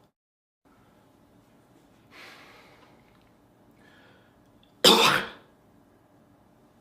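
A man coughs once, a single sharp cough about five seconds in, after a softer breathy sound about two seconds in.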